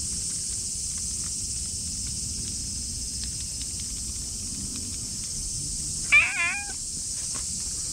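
Ginger tabby and white cat meowing once, a short meow with a wavering pitch about six seconds in.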